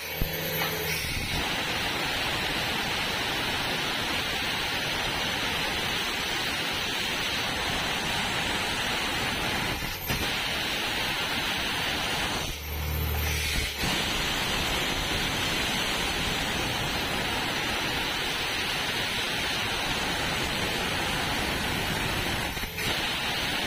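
Borewell drilling rig running, with a steady, loud hiss of air and spray blowing out of the bore.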